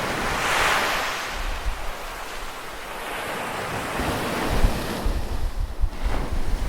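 Ocean surf: a wave breaks and washes in about half a second in, then recedes. From about four seconds in, wind buffets the microphone with low, gusty rumbling.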